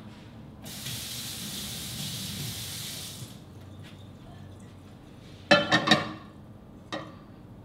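Kitchen tap running into the sink for about three seconds as a pan is rinsed, stopping abruptly. A couple of seconds later a metal pan clatters down onto the stovetop in three quick, ringing knocks, with one lighter knock a second after.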